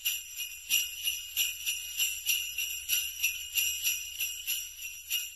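Sleigh bells shaken in a steady rhythm, about three jingles a second.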